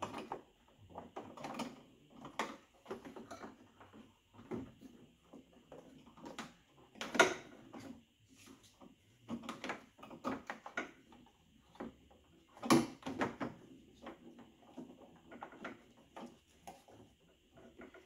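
Plastic clicks, taps and rustles of a Ford F-150 keypad door handle assembly and its wiring being handled and fed into the door, with sharper knocks about seven and thirteen seconds in.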